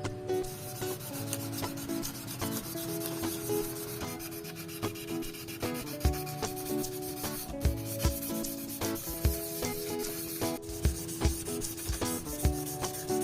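Continuous rasping, rubbing noise of sanding, under background music whose notes change in steps, with a steady low beat coming in about six seconds in.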